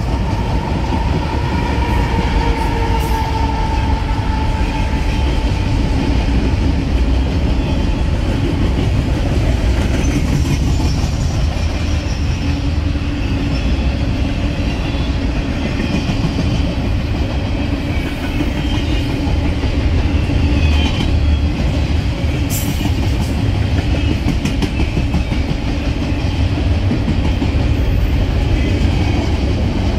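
Double-stack container freight train rolling past close by, a steady heavy rumble of steel wheels on the rails with a few sharp clicks about two-thirds of the way through.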